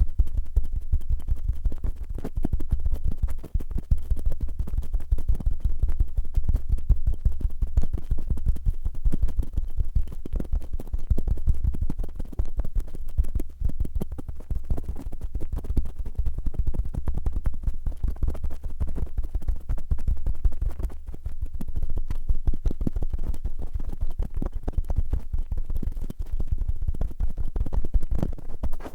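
Cotton swabs scratched and rubbed fast and roughly in a microphone's ear: a dense, unbroken run of scratchy strokes over a low rumble.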